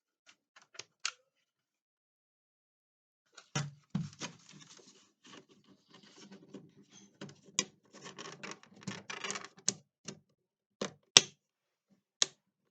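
Plastic laptop case parts being pried and handled: a run of sharp clicks and scraping begins about three and a half seconds in, followed by a few separate loud clicks near the end.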